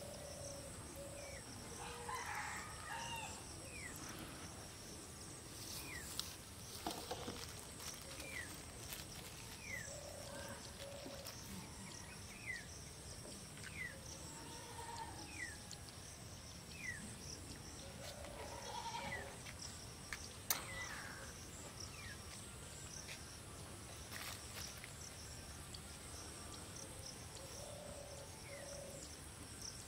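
Faint rural ambience: distant farm-animal calls now and then, with a run of short, high, falling chirps about one a second through the middle, and a few sharp clicks.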